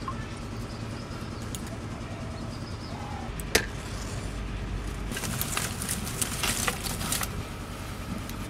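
A match struck once, about three and a half seconds in, followed by a couple of seconds of dry fuel in a clay stove crackling as it catches fire.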